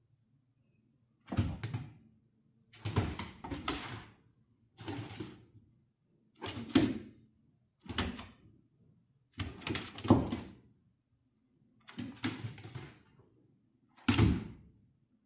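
A series of about nine rattling thumps, roughly one every second or so, each a low knock with a clattering rattle over it.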